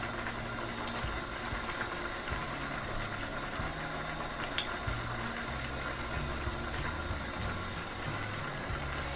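A steady low hum of kitchen room tone while a pan heats on the stove, with a few light clicks of metal tongs against a glass bowl.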